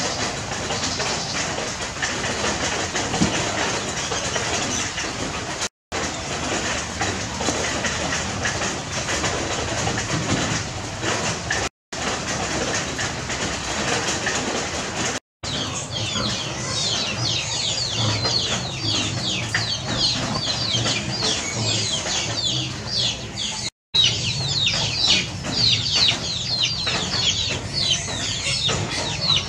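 Outdoor background noise over several short clips, broken by abrupt cuts. From about halfway, many quick high chirps repeat densely and continuously: birds chirping.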